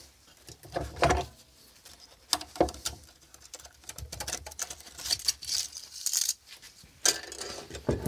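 Plastic-cased current transformers from a circuit breaker being handled and set down on a wooden workbench: scattered clicks, knocks and small rattles, busiest around the middle.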